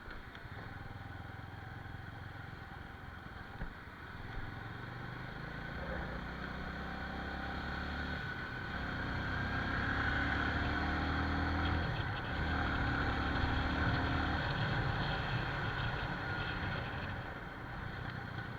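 Motorcycle engine running while riding, with road and wind noise. The engine note holds steady, then shifts in steps, growing louder towards the middle and dropping briefly about twelve seconds in.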